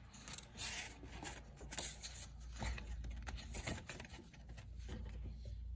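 Pages of a picture book being turned by hand: a series of faint, short paper rustles and flicks over a low steady hum.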